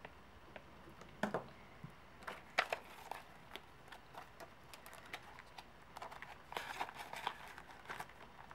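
Paper rustling with scattered light clicks and taps from cash envelopes and bills being handled. The taps come closer together about six seconds in.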